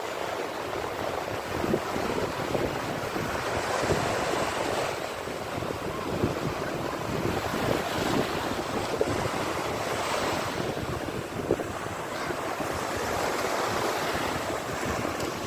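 Sea waves rushing and washing on the shore in swells that rise and ease, with wind buffeting the microphone.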